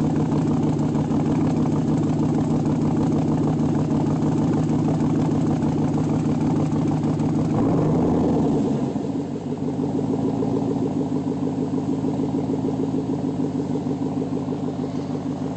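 Trailblazer SS's 6.0-litre LS2 V8 running with a misfire: the engine note holds steady, briefly rises about eight seconds in, then drops to a lower, uneven, pulsing note. The engine bogs down and surges back up, the symptom of the misfire.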